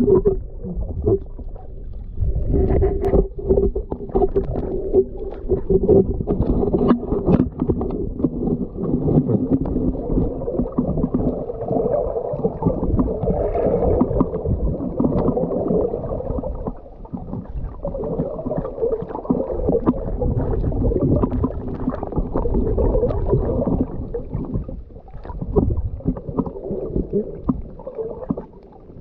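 Muffled underwater sound of a snorkeler swimming, recorded by a camera underwater: water movement, gurgling and irregular knocks against the camera, with a steady low hum in the first several seconds.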